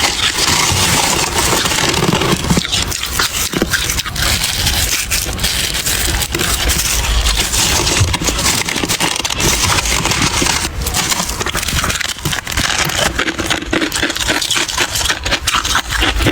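Soft frost ice being crunched close to the microphone: a dense, continuous crackling and scraping with many small crunches.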